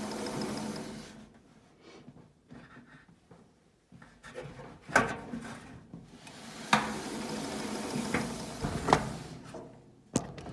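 A steady hum that stops about a second in, then a few sharp knocks with rubbing and scraping in between, as a Whirlpool dryer's idler pulley and drive motor are handled during a noise check.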